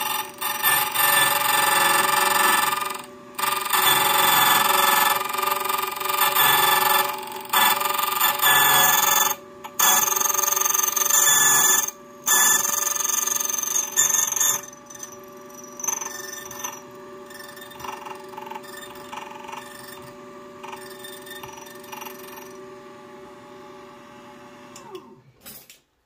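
Xhorse Condor XC-009 key cutting machine's motor-driven cutter wheel cutting a brass Sargent key blank: a loud, ringing screech broken by a few short gaps. About 15 seconds in it gives way to the quieter sound of the running cutter, and the motor winds down near the end.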